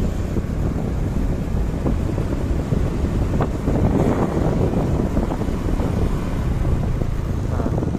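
Wind buffeting the microphone of a moving road vehicle: a loud, gusty rumble with the vehicle's running noise underneath.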